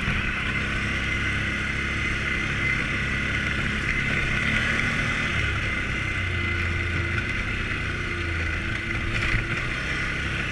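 Can-Am Outlander 450 ATV's single-cylinder Rotax engine running steadily while the quad is ridden along a dirt trail. Its low note swells for a couple of seconds past the middle, and there is a single sharp knock about nine seconds in.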